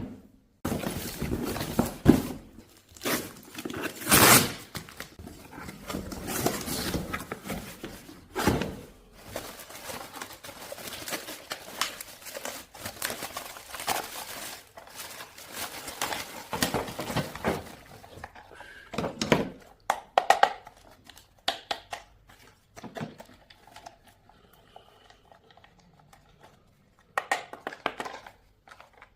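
Toy packaging being opened by hand: cardboard and plastic crinkling and tearing, with knocks as the box and toy truck are handled. The rustling is dense for the first two-thirds, then thins to scattered clicks and knocks.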